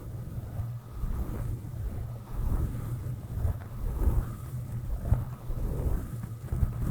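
A soft brush stroked directly over a microphone, making a low, rumbling swish that swells with each stroke, a stroke about every half second to a second. Near the end the microphone takes a sharp bump.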